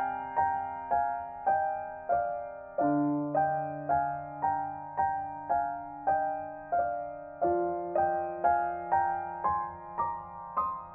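Solo piano background music: single notes struck about twice a second, each dying away, over low bass notes that change every few seconds.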